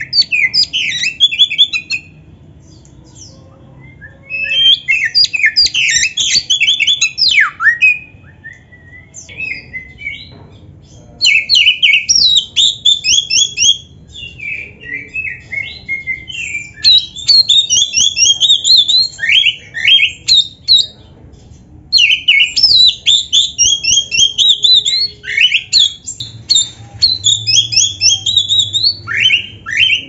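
Oriental magpie-robin singing a loud, varied song of fast high notes, in bouts of a few seconds separated by short pauses.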